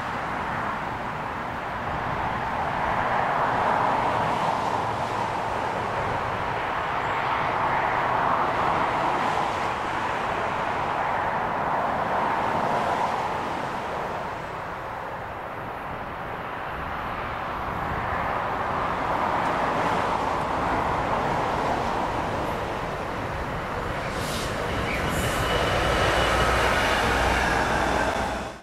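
DB Cargo Class 66 diesel-electric locomotive running light engine. Its diesel engine makes a continuous sound that swells and eases every few seconds.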